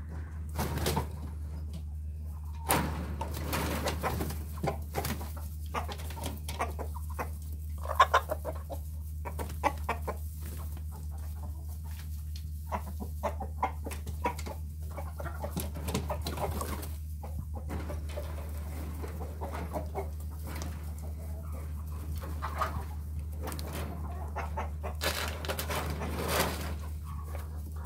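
A flock of chickens clucking and squawking in short, irregular calls as they scramble over scraps of meat, over a steady low hum.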